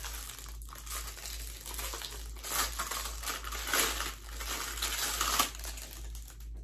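Plastic packaging crinkling and rustling as it is handled, in uneven spurts that are loudest in the middle stretch and die away near the end.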